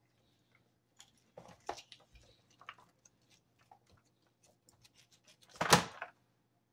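A roast turkey carcass being pulled apart by hand in a disposable aluminium foil pan: scattered small clicks and rustles of foil and tearing meat, with one much louder crackle near the end.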